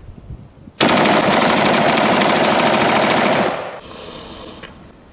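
A long burst of rapid automatic gunfire, starting a little under a second in and lasting about two and a half seconds before it cuts off. Its echo fades away afterwards.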